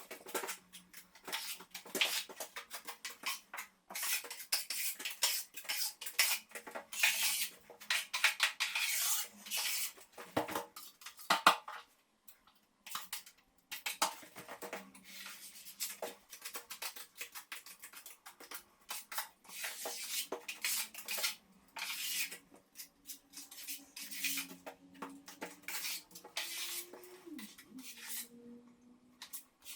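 Metal hand tools scraping and clinking in quick, irregular strokes, in clusters broken by short pauses.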